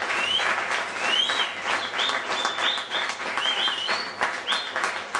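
Audience applauding, with short high whistles rising and falling about once a second through the clapping.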